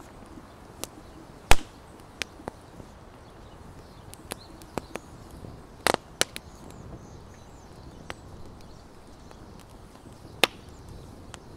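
Wood campfire crackling: a dozen or so sharp pops at irregular intervals, the loudest about one and a half seconds in.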